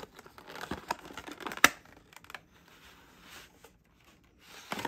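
Cardboard webcam box being opened and its inner tray slid out: rustling and scraping with sharp clicks, the loudest about a second and a half in, another near the end.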